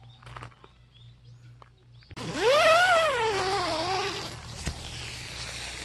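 A single long wavering cry, about two seconds in: it rises quickly, then wobbles and slowly falls in pitch over about two seconds.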